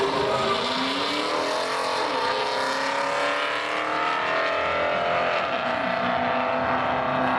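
A Dodge Charger sedan and a Volkswagen Golf hatchback launching side by side and accelerating hard down a drag strip, their engine notes climbing in pitch over the first few seconds and then running steadier.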